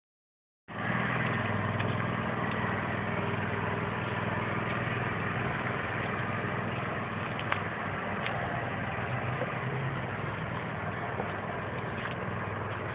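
Lawn mower motor running steadily, starting about a second in.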